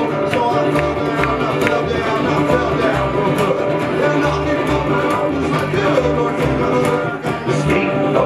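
Live string band playing an uptempo country-bluegrass song: upright bass plucking a steady low beat under acoustic guitar strumming and fiddle.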